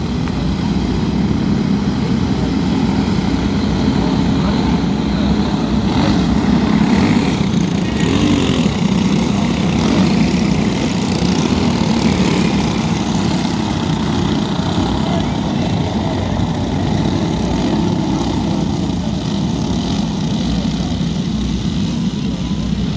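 Small racing-kart engines running together in a race on a dirt speedway, a loud steady drone with no breaks.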